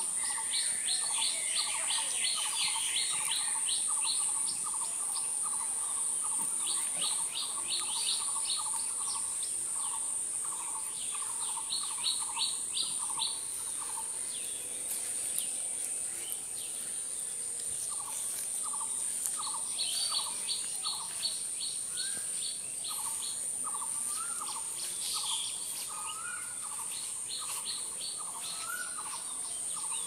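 Birds singing in a chorus, with runs of quick repeated chirps and short bursts of high rapid notes, over a steady high-pitched buzz of insects.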